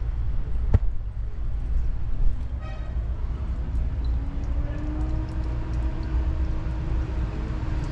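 Background vehicle and workshop noise: a steady low rumble, with a sharp click a little under a second in and a brief pitched beep or toot just under three seconds in. A steady low hum comes in about halfway and holds to the end.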